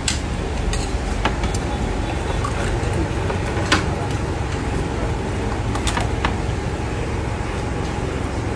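Steady low rumbling background noise like road traffic, with a few short sharp clicks scattered through it, a cluster of them about six seconds in.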